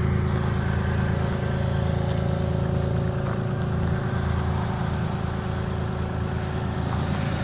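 IHI 35N mini excavator's diesel engine idling steadily.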